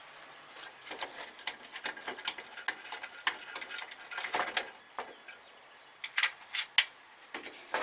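Light rapid clicking and ticking of a radiator bracket and its screw being handled and hand-tightened on a steel core support: a quick run of ticks over the first few seconds, then a few separate sharper clicks near the end.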